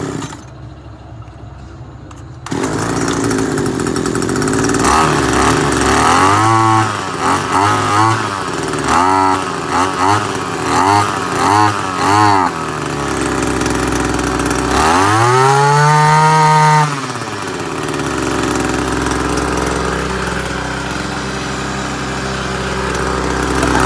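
Ruby T100 brush cutter engine starting a couple of seconds in, then revved in a string of short throttle blips and one longer high rev before settling to a steady idle: a test run showing the used engine starts and runs.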